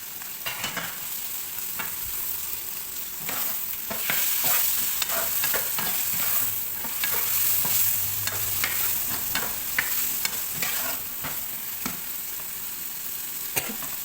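Chicken pieces frying in hot oil with the spice paste, sizzling steadily, while being stirred with repeated short scrapes and clacks against the pan. The sizzle gets louder about four seconds in.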